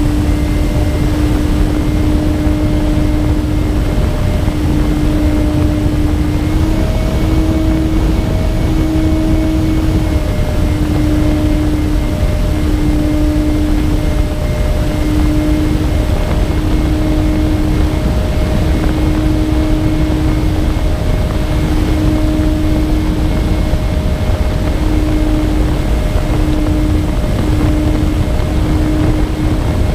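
Twin electric motors and propellers of a MyTwinDream FPV plane running steadily in flight, heard from the onboard camera with heavy wind rush on the microphone. The motor tone steps up slightly about seven seconds in and settles back a few seconds later.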